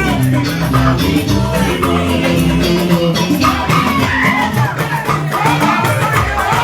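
Upbeat music with a steady percussion beat over a bass line.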